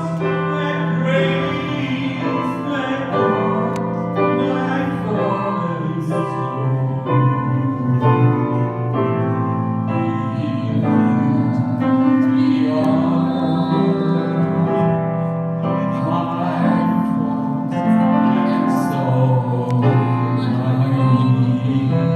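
A man singing through microphone and speakers, accompanied by chords on an electronic keyboard.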